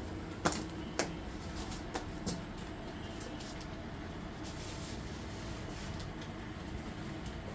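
Steady low rumbling noise, with a few sharp clicks or knocks in the first couple of seconds.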